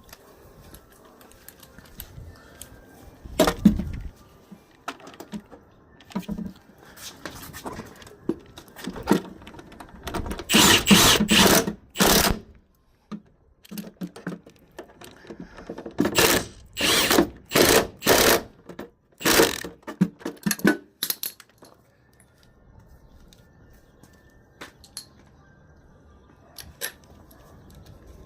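Power tool working on the truck's door hinge bolts: short bursts, a cluster about ten seconds in and then a run of about one a second, with scattered knocks from tools on metal in between.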